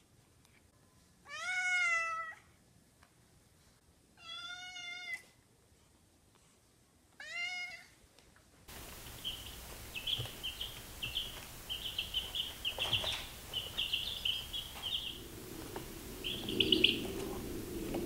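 A tabby cat meows three times, each meow about a second long and a few seconds apart. Then baby chicks peep in quick runs of short, high cheeps.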